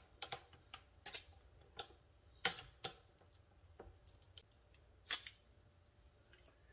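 Light, irregular clicks and taps of hands working zucchini scraps off a KitchenAid spiralizer attachment, about a dozen small knocks with gaps between them; the mixer motor is not running.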